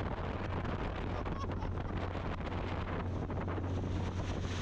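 A vehicle moving at steady speed: a steady low engine hum under wind rushing across the microphone.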